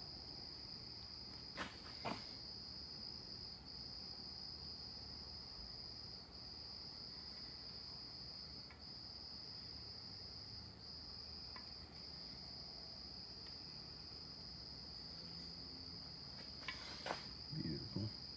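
A faint, steady, high-pitched insect trill with brief breaks every second or two. Two light clicks come a couple of seconds in, and a few more come near the end.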